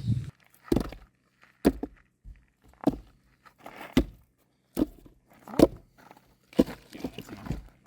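Slow, evenly paced footsteps or knocks, about one a second, eight in all, the loudest a little past the middle.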